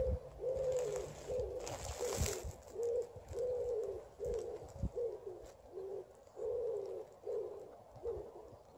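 A pigeon cooing: a string of soft, low, pitched coos, about two a second, some held longer, which stop shortly before the end.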